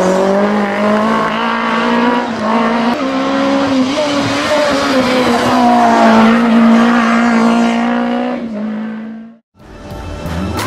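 Renault Clio rally car's engine running at high revs as the car drives past, its pitch held high with small rises and dips. The sound cuts off suddenly near the end.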